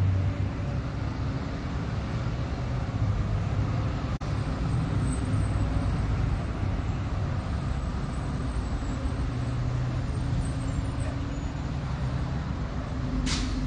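A line of school buses driving past, their engines running steadily with road noise. A short hiss sounds near the end.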